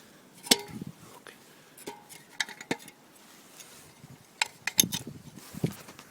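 Metal parts of a camping stove set (burner, cup and bottle) being handled: a series of separate sharp clinks and knocks, a few with a brief metallic ring.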